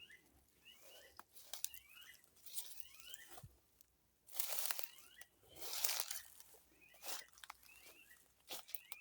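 Short rising chirps of small birds repeat faintly throughout. Two louder bursts of rustling, crunching noise come about halfway through, with a few scattered clicks.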